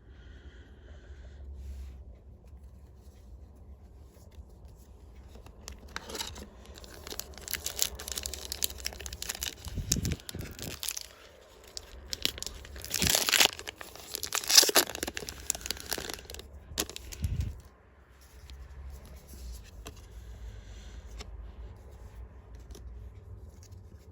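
Disney Lorcana booster pack wrapper being torn open and crinkled by hand: a stretch of rustling and tearing from about six seconds in to about seventeen seconds, loudest around thirteen to fifteen seconds.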